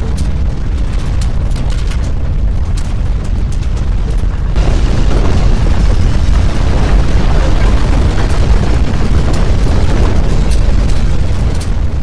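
Deep, continuous rumble of simulated earthquake shaking with scattered crackles, growing louder and harsher about four and a half seconds in.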